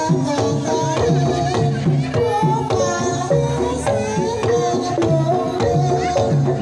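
Banyumasan gamelan music for a tayub dance: kendang hand drum in a steady stroke pattern with mallet-struck bars ringing, and a sinden's singing voice over it.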